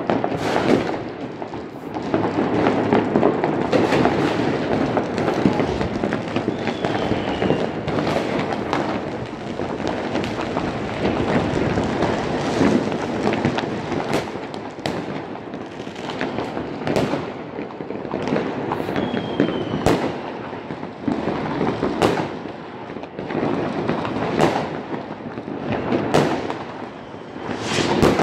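Many fireworks rockets and firecrackers going off all over a city at once: a continuous crackle of distant bangs with sharper, nearer bangs every second or two. Two faint falling whistles come through the din.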